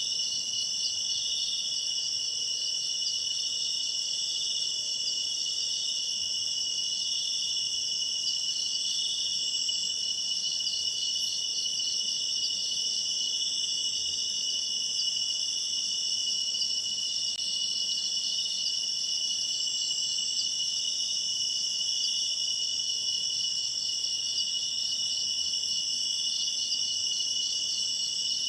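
Steady, high-pitched chorus of insects such as crickets, trilling without a break.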